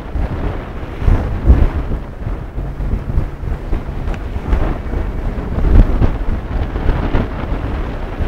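Wind buffeting the microphone in uneven gusts aboard a sailboat under sail, with the rush of sea water along the hull underneath.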